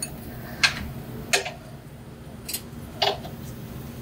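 Four short, irregular metallic clicks and knocks from hands working parts and tools up under the car at the rear differential, over a faint steady background hum.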